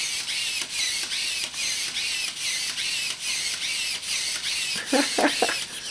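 Robopet toy robot dog's small motors and gears whirring in quick, even pulses, about four or five a second, each with a high whine.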